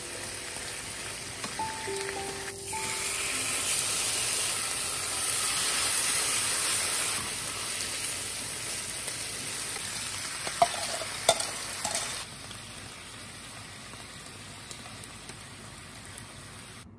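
Pork slices and sliced onions sizzling in a frying pan. The sizzle is strongest in the first half and dies down after about twelve seconds, with a few sharp clicks just before that.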